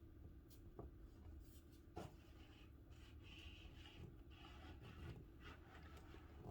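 Near silence with faint scratching or rubbing and a few light taps, like small hand work against a wall surface.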